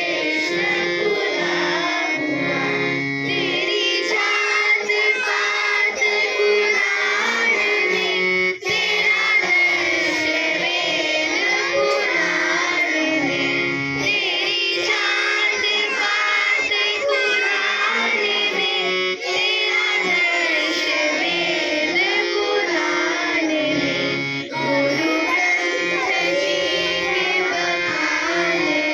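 A school music band playing a song: children's voices singing over instrumental accompaniment.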